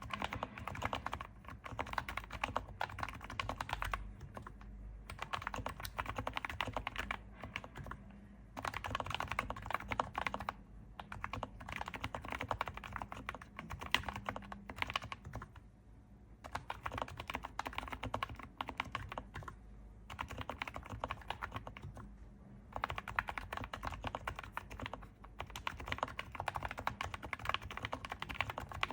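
Typing on a Sho S60 V2 keyboard with Topre switches and aluminium keycaps: runs of quick keystrokes broken by short pauses.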